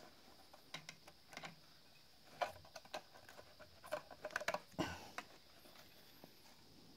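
Light clicks, taps and scrapes of a subwoofer amplifier board on its finned metal heat sink being handled and turned over by hand, with a quick cluster of taps about four seconds in.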